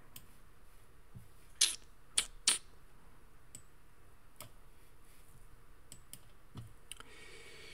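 A few sharp clicks at a computer desk: three louder ones close together about two seconds in, and fainter ticks scattered through the rest, over a quiet room.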